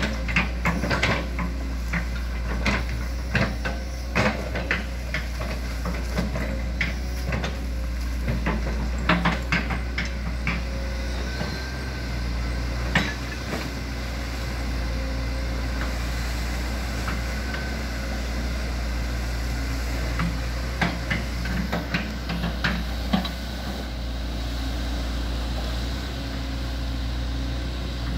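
Hitachi ZX110MF excavator's diesel engine running steadily, with frequent sharp knocks and clanks from the machine as it swings its boom and works the bucket. The knocks come thickest through the first ten seconds and again around twenty to twenty-three seconds in.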